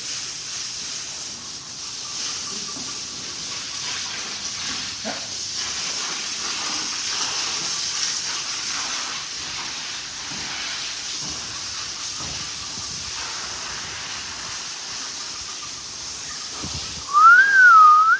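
A strong jet of water spraying steadily from a hose onto a cattle shed floor, washing dung away, a continuous hiss. Near the end a loud whistled note rises and falls.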